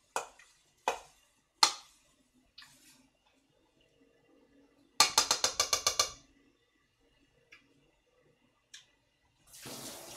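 A metal spoon clinking against a stainless steel mixing bowl of seasoned bean sprouts: a few single clinks, then a quick run of about a dozen rapid taps about five seconds in. Near the end a kitchen tap runs briefly.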